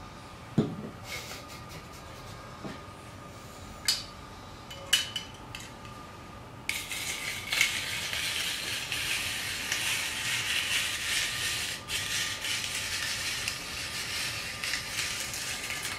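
A few sharp metal knocks, then from about seven seconds in a continuous rasping scrape as the crank of a stainless steel rotary grater turns its drum and shreds carrot.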